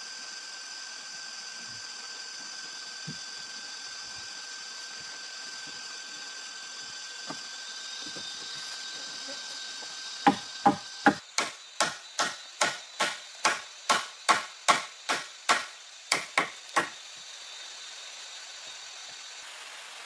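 A run of about twenty sharp chopping strikes on wood, roughly three a second, starting about halfway through and stopping a few seconds before the end.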